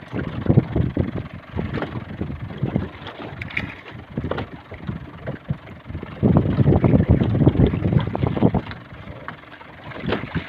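Wind buffeting the microphone in irregular gusts, loudest for a couple of seconds past the middle.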